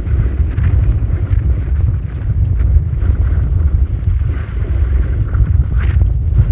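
Strong wind buffeting the microphone: a loud, gusting low rumble with a faint hiss above it.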